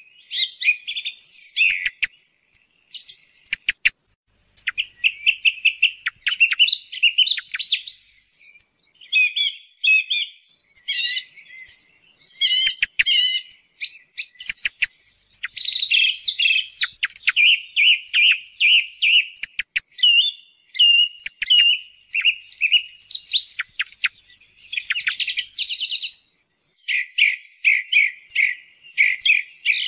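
Song thrush singing: a continuous run of varied whistled and chattering phrases, many of them a note repeated several times in quick succession, with brief pauses between phrases.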